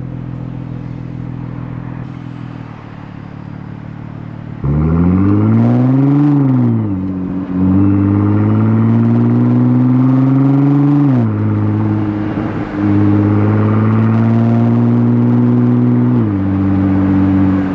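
Nissan GT-R R35's twin-turbo VR38 V6 with a non-catted midpipe, driving: a steady drone at first, then about five seconds in it gets much louder under acceleration, the revs rising and falling, then climbing through two more gears with a sharp drop in pitch at each upshift.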